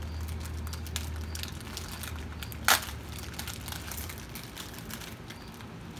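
Plastic toy packaging crinkling as hands work it open, with one loud sharp crackle or rip about two and a half seconds in.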